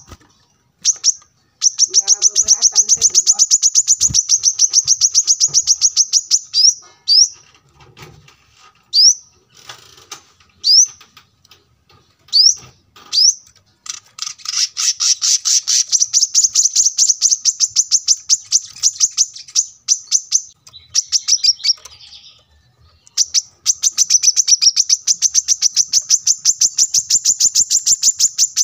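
Male brown-throated sunbird singing: long, rapid high-pitched trills of quickly repeated notes, broken in the middle by a string of short single rising notes.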